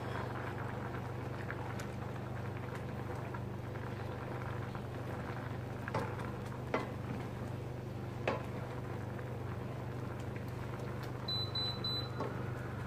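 Cream simmering in a stainless steel saucepan while a wooden spoon stirs it, knocking against the pot three times, over a steady low hum. Near the end, three quick high beeps from the electric cooktop's touch control as its power is turned down from 1800 to 1100 watts.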